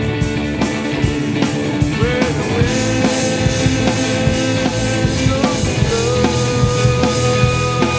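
Rock song with drum kit and guitar, a steady beat under a long held lead note that slides up into pitch about two seconds in and again near six seconds.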